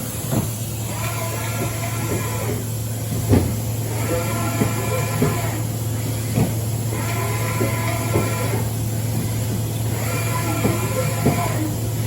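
The OKK MDV55 vertical machining center's table is rapid traversing back and forth under program. The axis drives whine in a cycle that repeats about every three seconds, with brief pauses and knocks as the table changes direction, over a steady low hum.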